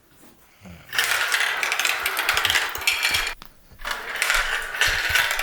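Many marbles rolling and clattering together down a marble-run track, in two long runs of dense rattling with a short gap between them.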